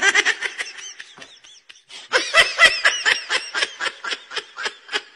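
A person laughing in quick repeated bursts, about four a second: a short bout at the start, then a louder, longer bout from about two seconds in.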